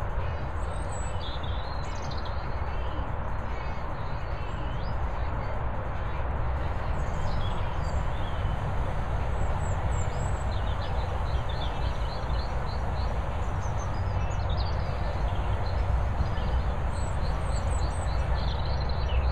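Steady low outdoor rumble and hiss, with small birds chirping on and off throughout.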